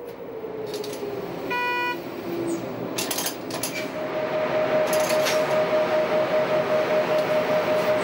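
Passing train hauled by a Class 103 electric locomotive: a whine falling in pitch, a short horn-like note about a second and a half in, a few clicks, then steady running noise with a hum that pulses about three times a second.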